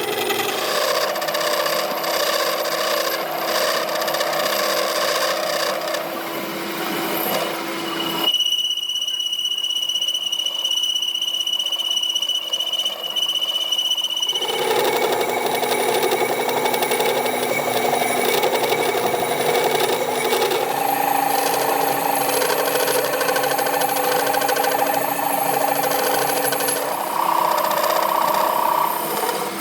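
Workshop machine tools running steadily, the sound changing abruptly several times from one machine or cut to the next. A steady high whine sits over the machine noise for about six seconds in the middle.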